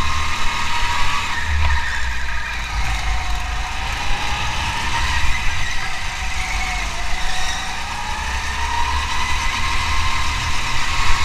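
Car engine running steadily over a heavy low rumble, its pitch dipping about two-thirds of the way through and rising again.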